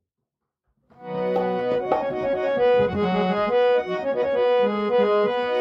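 Instrumental music of a Gojri song starting suddenly about a second in after silence: a reed instrument plays a melody of held notes over a sustained low note.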